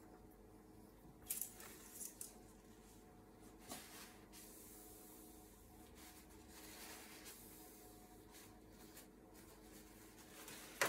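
Dipstick being drawn out of its tube and wiped with a paper towel: faint rustling with a few light clicks and scrapes, and a sharper click near the end, over a faint steady hum.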